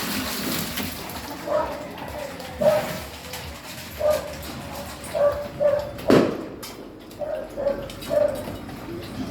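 A dog giving short, repeated barks, roughly one a second, with one sharp knock about six seconds in.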